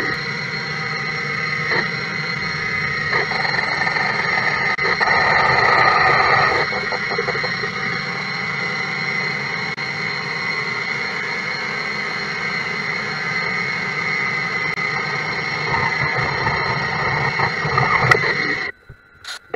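CNC lathe cutting an aluminium cylinder-liner blank, boring and turning it, with a steady high-pitched whine of several tones over the machine's running. It cuts off suddenly about a second before the end.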